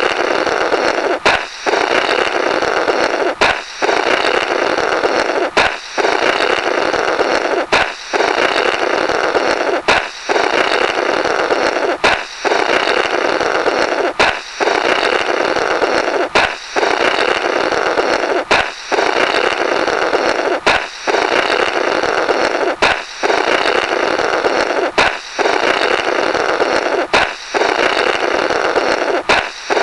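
Comic 'blorrrt' balloon-break sound effect playing on a loop. A balloon pops with a sharp crack, then a buzzy, raspy blowing runs through the burst rubber for about two seconds. The cycle repeats evenly, about every two seconds.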